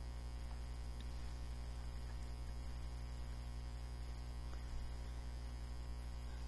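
Steady electrical mains hum with a few faint ticks.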